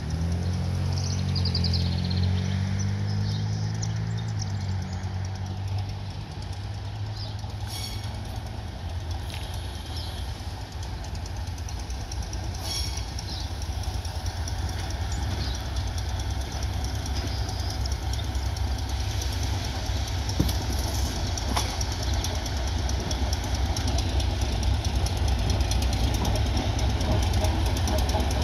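Diesel locomotive hauling passenger coaches toward the listener, its engine running with a steady low drone and a few sharp clanks from the train. It grows gradually louder as it draws near.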